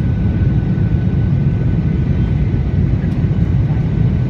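Steady low rumble of an airliner's engines and airflow inside the passenger cabin, with a faint steady whine above it.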